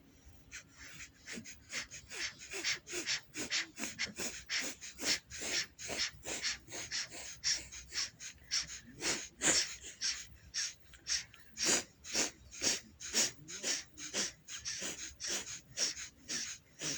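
Kapalabhati yogic breathing: short, forceful exhalations through one nostril, the right nostril held closed, repeated in an even rhythm of about two a second.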